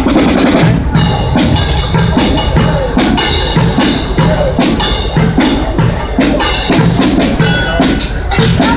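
Bucket drumming: drumsticks beating plastic buckets, steel pots and a metal lid in a fast, busy, unbroken rhythm.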